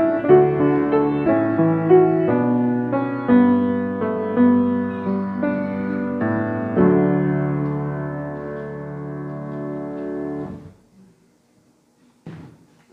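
Grand piano playing a short passage of chords that ends on a long-held chord, released about ten and a half seconds in. A soft, brief thump follows about a second and a half later.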